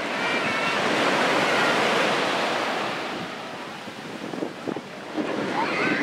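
Small surf breaking and washing up a sandy beach. It is loudest in the first few seconds, eases off around the middle, and swells again as the next wave comes in near the end.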